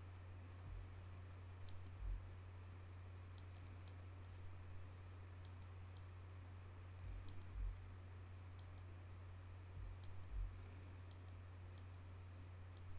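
Computer mouse button clicking about a dozen times at irregular intervals while cloning over a photo, with a few soft low thumps and a steady low hum underneath.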